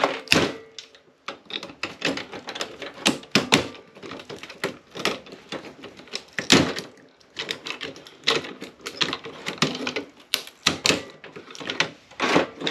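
Irregular clicks, clacks and knocks of hand tools working on the metal and plastic parts of an APC battery-backup unit as it is taken apart.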